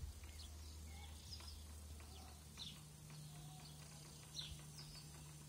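Faint, scattered bird chirps over a low steady hum.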